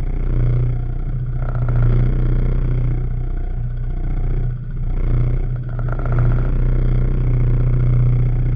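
Small fishing boat's engine running steadily with a low, even hum, heard muffled through an action camera's waterproof case.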